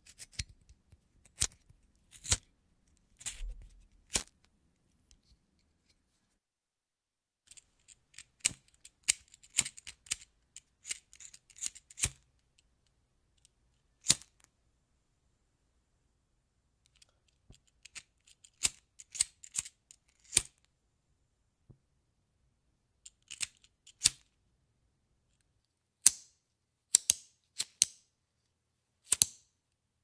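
BIC disposable lighter being flicked over and over, its thumbwheel scraping the flint in sharp clicks. The clicks come in irregular groups of several strikes, with pauses of a few seconds between groups.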